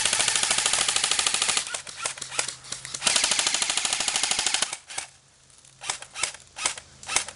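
Airsoft rifles firing on full auto: a rapid burst of shots lasting about a second and a half, a few single shots, then a second burst of similar length about three seconds in. Scattered single shots follow near the end.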